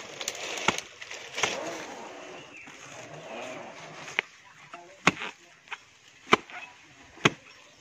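Repeated chopping blows of a long-handled blade into the fibrous crown of a felled coconut palm, cutting down to the palm heart. There are about seven sharp strikes at uneven spacing, with a pause of a couple of seconds in the middle and rustling of fronds and fibre early on.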